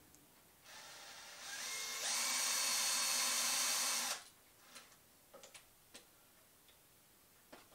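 Cordless drill with a twist bit starting up, rising to full speed after about a second, running steadily for about two more seconds and then stopping, spot-drilling hole centres in an aluminium angle bracket. A few light clicks follow.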